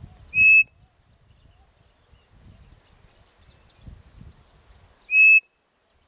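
Wooden bird-call whistle (pio) blown by mouth: two short, loud whistled notes nearly five seconds apart, each a quick upward slide onto a steady note.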